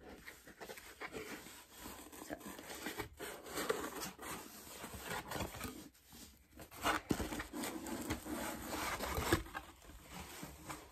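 Hands handling a cardboard mailer box: a run of light taps and scrapes on the cardboard as the lid is worked loose and opened, with the tissue-paper packing inside rustling.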